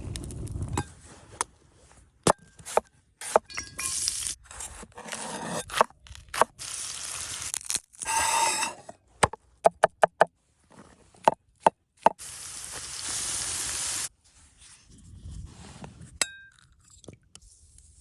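Cooking sounds in quick cuts: sharp clinks and knocks of utensils against cookware, scraping, and a steady hiss lasting about two seconds near the middle.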